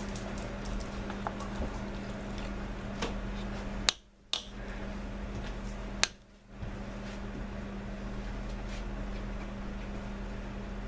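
Silicone spatula scraping thick soap paste off a metal spoon into a crock pot: soft squishing with light clicks of the utensils, and two sharp taps about four and six seconds in. A steady low hum runs underneath.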